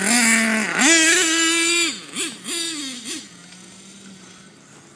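HPI Savage X 4.6 nitro RC monster truck's small nitro engine at high revs: it climbs and holds a high pitch for about a second, then drops off the throttle with a few quick blips and settles to a much quieter idle about three seconds in.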